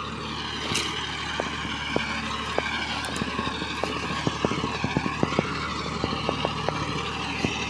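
Farm tractor's diesel engine running steadily as it works a flooded paddy field, a continuous drone with scattered short ticks over it.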